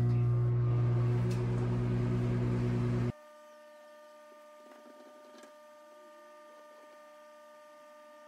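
Countertop microwave oven running, a loud steady electrical hum as it heats a silicone bowl of water. The hum cuts off abruptly about three seconds in, leaving only a faint steady high-pitched hum.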